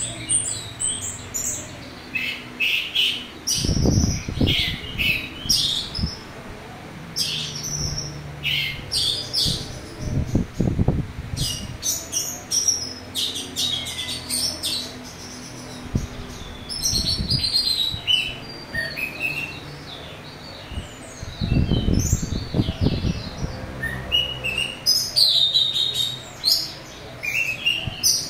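Orange-headed thrush singing a varied song of quick high phrases and chirps, full of rough imitated notes. Three low thumps break in, about four seconds in, near eleven seconds and near twenty-two seconds.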